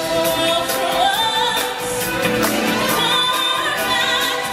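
Live stage-show music: a choir of voices singing over a band with a steady drum beat, some high voices holding wavering notes.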